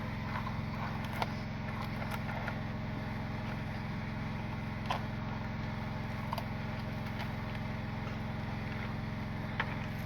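A motor running steadily with a low, even hum, and a few light clicks or taps scattered through it.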